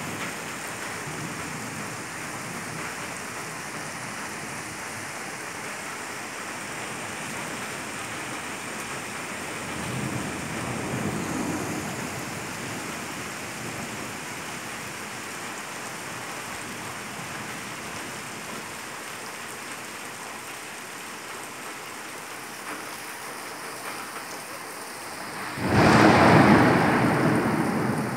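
Thunderstorm: rain falling steadily, with a low roll of thunder about ten seconds in and a loud, sudden thunderclap near the end that rumbles away slowly.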